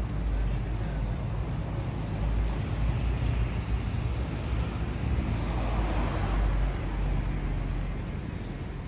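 Road traffic close by: a steady car-engine rumble, with a vehicle passing about six seconds in.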